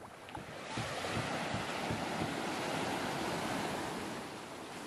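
Sea surf breaking and washing up over the shallows of a sandy beach: a broad hiss that swells about a second in and eases off near the end, with wind buffeting the microphone.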